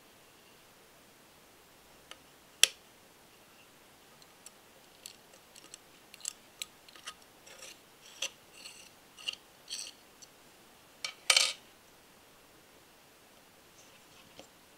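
Small metal parts of a full-metal radial engine model kit clicking and tapping against each other as they are fitted and screwed together. There is one sharp click about two and a half seconds in, a run of lighter clicks and taps in the middle, and a louder, slightly longer metallic clack a little after eleven seconds.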